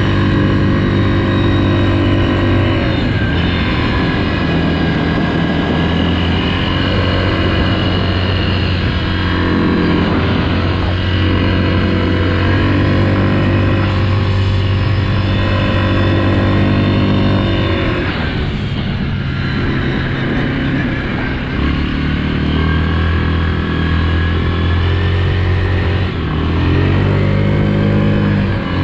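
Yamaha Grizzly ATV's 686 cc single-cylinder four-stroke engine running hard at speed. Its note drops and climbs back several times, about four times in all, as the throttle eases off and opens again.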